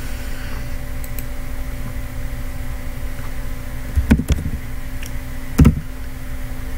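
Steady electrical hum and hiss from the recording setup. A few computer keyboard keystrokes knock through it: a short cluster about four seconds in and a single one about a second and a half later.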